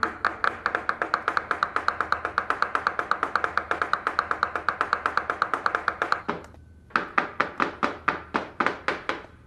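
Rapid, even knife chopping on a cutting board, about six strokes a second, stopping briefly a little past six seconds in and then resuming.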